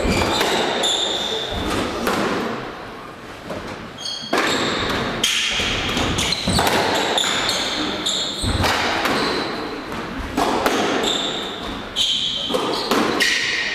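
Squash rally: the ball cracking off rackets and the court walls again and again, with sneakers squeaking sharply on the wooden court floor, echoing in the hall. The play eases briefly about three seconds in, then picks up again.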